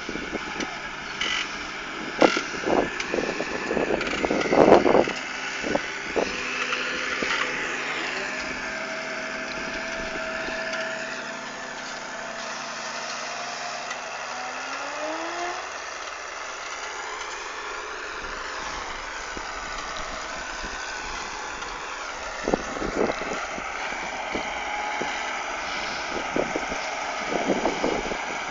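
Case IH Puma CVX 160 tractor running under load while ploughing, its engine note steady with a tone that rises in pitch partway through. Clusters of sharp knocks and clatter come in the first several seconds and again near the end.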